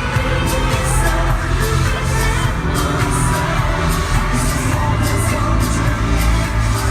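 Loud live K-pop music over a concert sound system: a heavy bass line and a steady drum beat under sung vocals.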